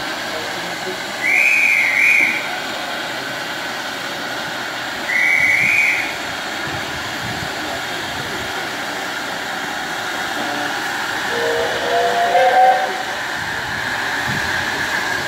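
Miniature steam locomotive's whistle blown in two short blasts about four seconds apart, over a steady hiss of escaping steam. Near the end comes a lower, wavering tone.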